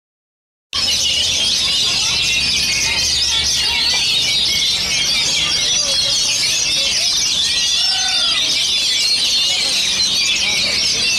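Many caged Oriental magpie-robins (kacer) singing at once, a dense, steady chorus of rapid high warbles, whistles and chatter that starts abruptly under a second in.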